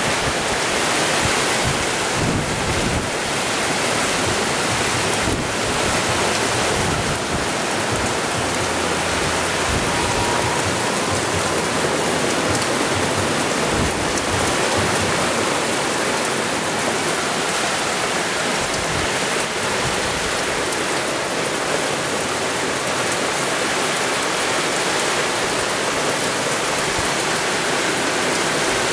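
Heavy rain pouring in a strong windstorm, a loud, steady hiss with irregular low gusts of wind underneath.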